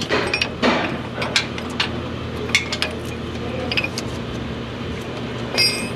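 Wrench clicking and clinking on a power steering line fitting at the steering box as it is worked loose: a few sharp metal clicks, with a brief ringing clink near the end. A steady low hum runs underneath.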